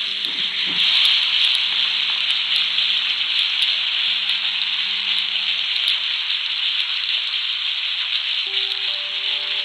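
Bone-in ribeye steak sizzling steadily as it sears in butter in a hot cast iron skillet.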